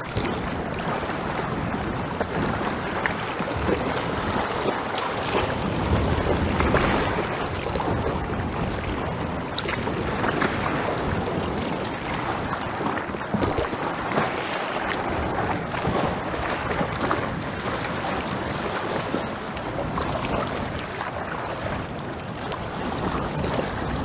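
Sea water washing and lapping around ice: a steady rush of water with frequent small clicks and knocks.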